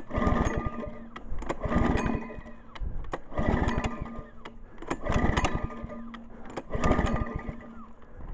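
Recoil starter of a small Chinese-made Harbor Freight lawn mower engine being pulled repeatedly: five pulls, one every second and a half or so, each turning the engine over briefly without it catching on a cold start.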